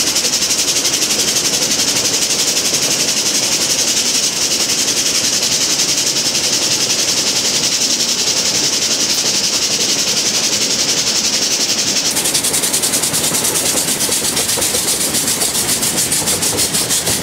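Mount Washington Cog Railway train running on its rack track, heard from the passenger coach: a loud, steady hiss with a rapid, even clatter that grows plainer about twelve seconds in.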